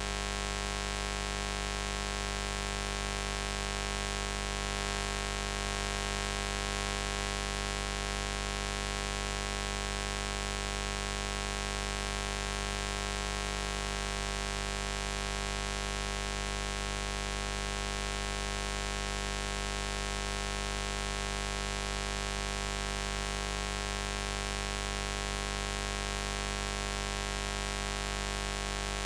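A steady, unchanging buzz: a low buzzing tone with many overtones and some hiss, held at a constant level.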